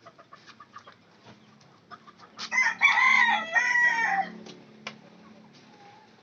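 A rooster crows once, a single call of about two seconds starting about two and a half seconds in, with a few light clicks before it.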